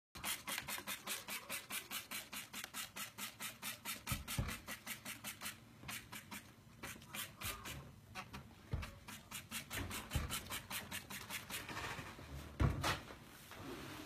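Trigger spray bottle of SuperClean degreaser being pumped fast, each squeeze a short spray, about five a second at first and then slower. A few low knocks, the loudest near the end.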